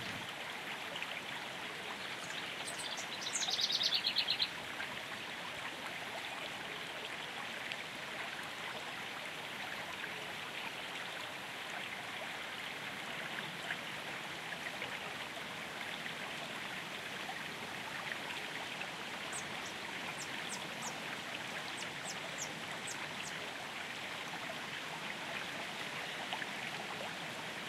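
Steady rushing of a flowing stream, with birdsong over it: a fast trill about three seconds in, and a run of short, high chirps about twenty seconds in.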